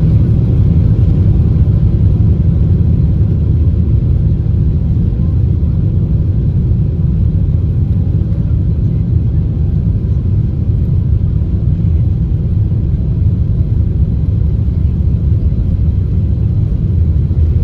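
Cabin noise of a Boeing 777-300ER taxiing: a steady low rumble from its GE90 engines at low power and the wheels rolling on wet pavement.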